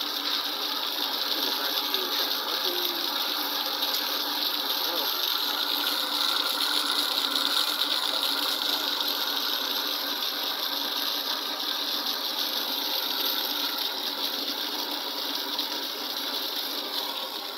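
Truck-mounted liquid transfer pump running steadily, with a jet of liquid spraying from its open port and splashing onto wet concrete.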